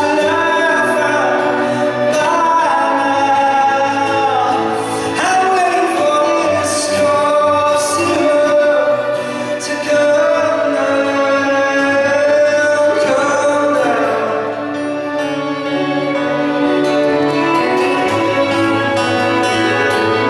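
Male singer performing a song live with acoustic accompaniment, his voice carrying over sustained low notes in a large, reverberant church.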